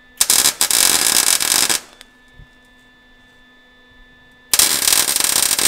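Wire-feed welder laying two short welds, each a loud crackling sizzle of about one and a half seconds: one right at the start and another beginning about four and a half seconds in.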